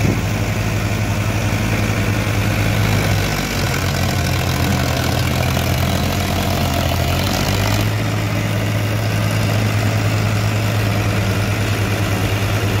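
Powertrac Euro 50 tractor's three-cylinder diesel engine running hard under heavy load, straining to pull a trolley heavily loaded with sugarcane. A steady low engine drone that dips briefly about three and a half seconds in and shifts in note near eight seconds.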